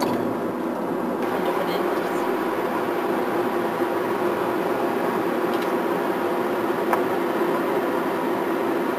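Steady road and engine noise of a moving car, heard from inside the cabin, with a faint click about seven seconds in.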